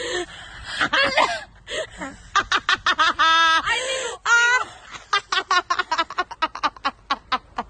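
Women's high-pitched voices laughing and exclaiming without clear words, with a couple of drawn-out cries in the middle and quick bursts of giggling in the second half.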